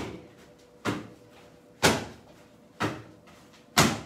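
Repeated knee strikes thudding into handheld Muay Thai strike pads, five sharp hits about one a second, alternating louder and softer.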